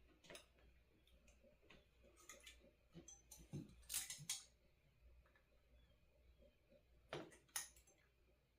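Faint, scattered clicks and taps from hand work on a small electronics kit circuit board during soldering, bunched a few seconds in and again near the end.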